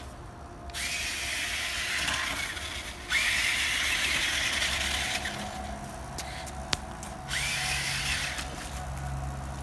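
Electric motor of a Monster Jam Megalodon radio-controlled truck whirring in three bursts of throttle, starting about a second in, three seconds in and seven seconds in, each rising quickly in pitch as it starts.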